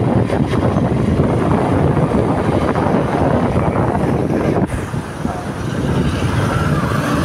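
Motorcycle being ridden along a street: its engine running under a steady, dense rumble of wind and road noise on the microphone, easing briefly about four and a half seconds in.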